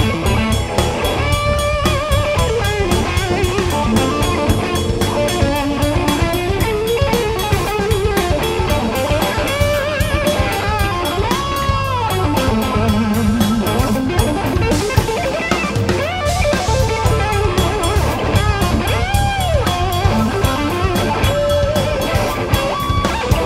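Vola electric guitar playing a lead melody full of bends, slides and vibrato, with bass guitar and drum kit behind it in a live instrumental band.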